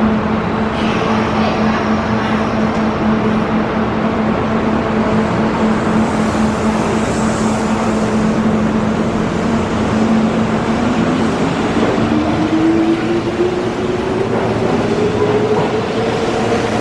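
Kintetsu limited express electric train pulling out of an underground platform: a steady electrical hum, then from about two-thirds in a motor whine that climbs in pitch as the train gathers speed.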